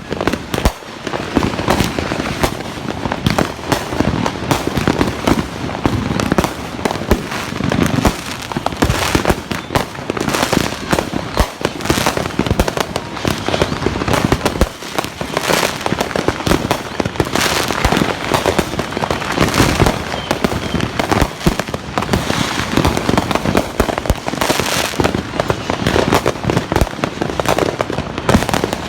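Fireworks and firecrackers going off nonstop, a dense run of bangs, pops and crackles from many directions at once.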